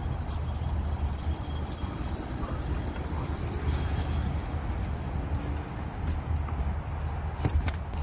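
Plastic trim push clips being pressed back into the lower seat trim, with light clicking and handling over a steady low rumble, and one sharp snap about seven and a half seconds in.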